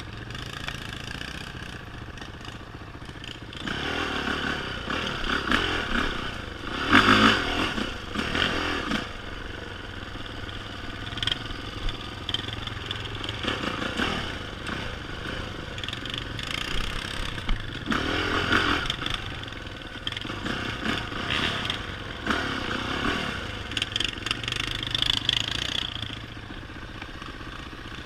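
A vehicle engine running steadily, with repeated stretches of louder clattering and scraping over it.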